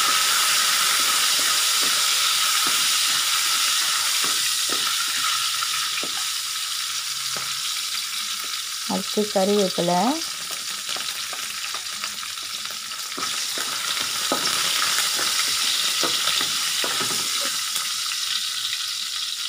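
Mustard seeds, fennel, cumin, fenugreek and dried red chillies sizzling steadily in hot oil in a non-stick wok, with a wooden spoon stirring and scraping them in short clicks. About halfway through, curry leaves are tipped into the oil.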